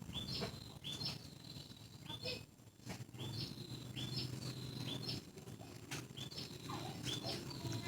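A small bird chirping over and over, short high notes, each a quick dip in pitch, about one every 0.7 seconds, over a low steady rumble.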